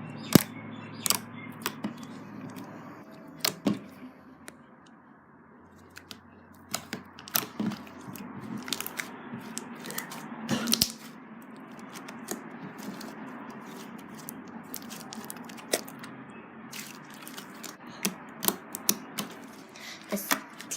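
Homemade slime being squished and stretched by hand, giving irregular sticky clicks and pops throughout.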